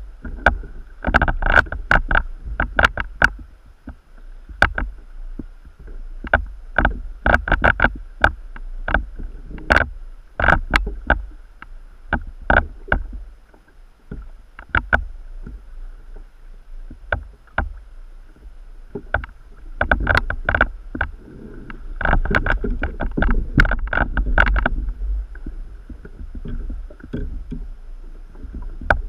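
Choppy water slapping and knocking irregularly against a plastic kayak hull, over a low rumble of wind and water, with a faint steady high tone.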